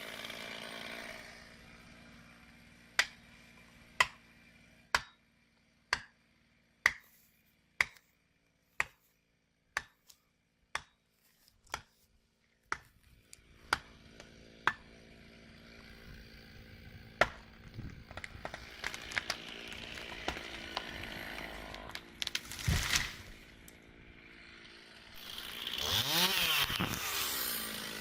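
About a dozen sharp blows struck on wood, roughly one a second, from about three seconds in. A chainsaw then runs in the second half and revs up and down near the end.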